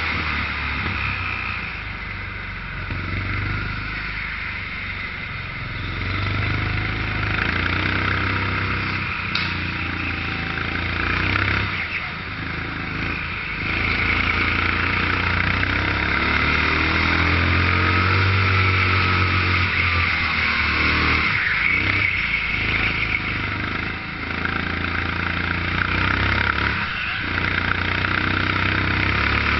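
13 hp Sodikart rental kart engine running hard, heard from on board, its pitch and loudness rising and falling as it accelerates along the straights and eases for the corners.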